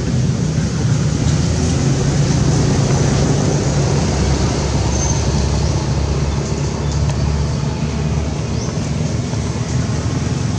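A steady low rumble that holds at an even level throughout.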